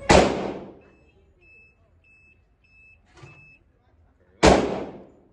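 Two gunshots from other lanes of an indoor shooting range, one at the start and one about four and a half seconds later, each loud and echoing off the range walls. Between them come short high electronic beeps, repeating.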